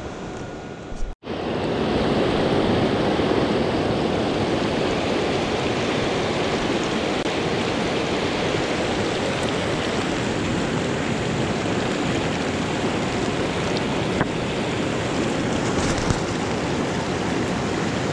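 Steady rush of river water running over rocks in a shallow riffle close by. A quieter stretch of the same rush breaks off abruptly about a second in, and the louder rush takes over.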